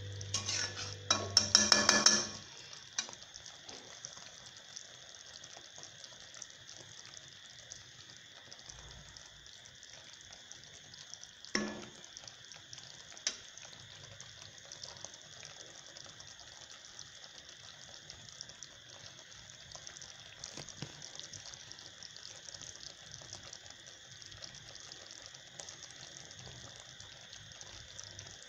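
A spoon clattering and scraping against a cooking pot as a thick curry gravy is stirred, loudest in the first two seconds, with a single knock a little before the middle. Afterwards faint crackling from the cooking gravy over a steady hiss.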